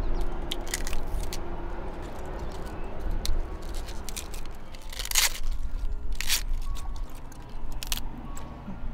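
Kitchen food-preparation handling: crunching and scraping with many short clicks and knocks, and two louder scraping rushes about five and six seconds in.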